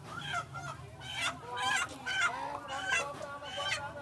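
Live chicken squawking in distress as it is grabbed and handled: a run of about five loud, repeated squawks that grow louder after the first second.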